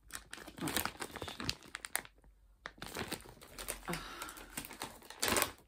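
Clear plastic bag of wax melts crinkling and rustling in irregular crackles as it is handled, with a short lull partway and the loudest crinkle near the end.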